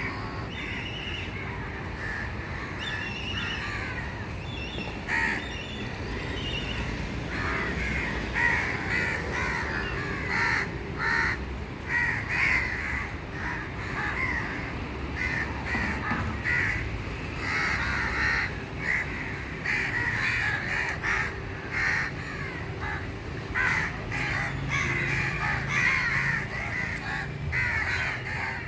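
Crows cawing over and over, with calls overlapping. The calls are scattered at first and come thick from about seven seconds in.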